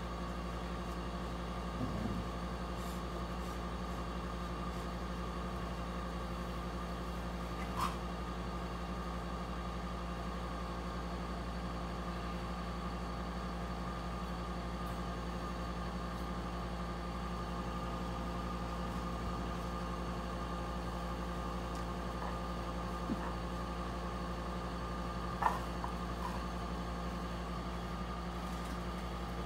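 A machine's steady hum with several fixed tones, unchanging throughout. A few brief short sounds rise above it, the clearest about 25 seconds in.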